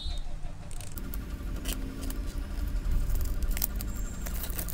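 Clear plastic shrink wrap crinkling and crackling with small irregular clicks as it is peeled off a cardboard phone box by hand.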